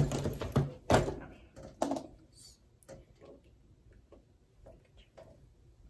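Books and papers handled and knocked on a desk in a search for a phone, with a few loud knocks in the first two seconds, then faint scattered clicks.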